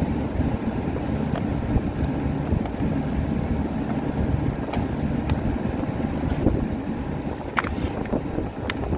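Refrigeration condensing unit running with a steady hum, with a few light clicks, the last two near the end.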